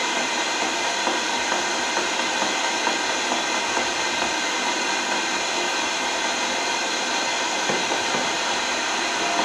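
Spirit box sweeping through radio frequencies, giving out a steady hiss of static.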